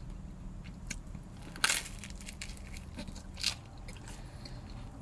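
Biting and chewing a crunchy thin-crust pepperoni pizza: a few short crisp crunches, the loudest about a second and a half in, over a steady low hum.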